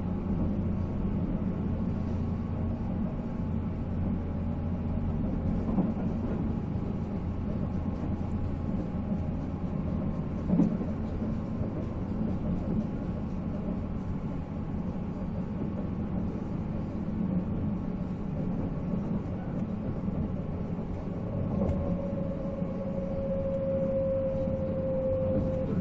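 Running sound of a JNR 485-series electric train with MT54 traction motors, heard on board: a steady rumble of wheels and motors on the rails, with one knock about ten seconds in. Over the last few seconds a tone slowly sinks in pitch.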